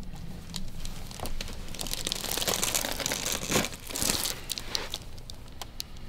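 Rustling of clothing and skin under a chiropractor's hands as they massage and press the base of the neck and upper shoulders, with scattered small clicks. The rustling is loudest through the middle seconds.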